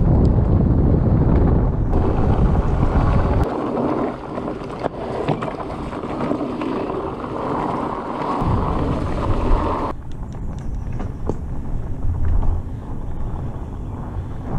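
Wind buffeting the camera microphone over the rattle and rolling noise of a mountain bike riding a dirt trail, with many small clicks and knocks from the bike. The sound changes abruptly about three and a half seconds in and again near ten seconds.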